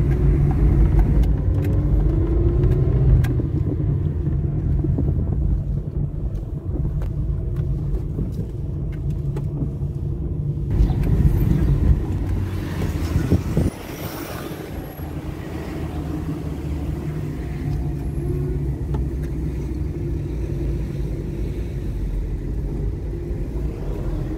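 Car engine and road noise heard from inside the moving car's cabin, a steady low rumble whose engine note rises and falls as the car speeds up and slows. A louder rushing noise swells about halfway through and cuts off sharply.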